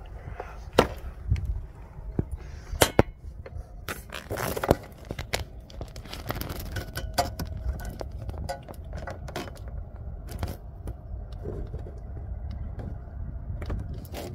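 Handling noise around a truck's underside: scattered sharp clicks, knocks and scrapes as a hand works at a sensor and its pin connector, the loudest knocks in the first five seconds, over a low steady rumble.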